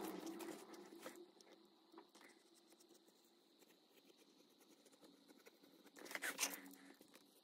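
Faint scraping and rustling of hand work on craft materials, with scattered light clicks; a louder stretch of scraping comes about six seconds in.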